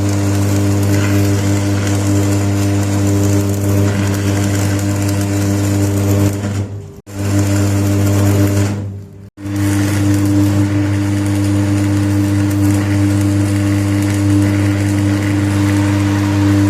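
Electric workshop machine running with a loud, steady hum. The sound drops out abruptly twice, about 7 and 9 seconds in.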